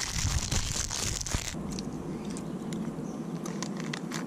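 Plastic snack-bar wrapper crinkling and crackling close to the microphone as it is handled and torn open. The sound is sharpest for the first second and a half, then turns into a duller rustle with scattered crackles, and it stops abruptly near the end.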